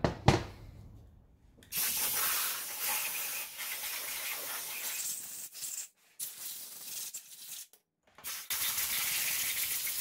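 Compressed-air blow gun hissing in three long blasts with short breaks between, blowing water off a washed motorcycle cylinder head to dry it. There is a sharp knock just at the start.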